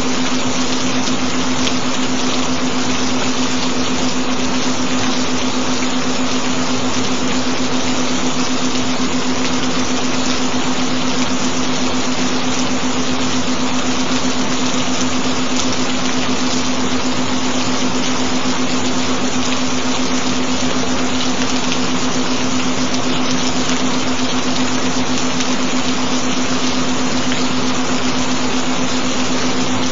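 Steady recorded rain, an even hiss of falling water, with a continuous low tone held underneath it, the kind of binaural tone laid under meditation tracks.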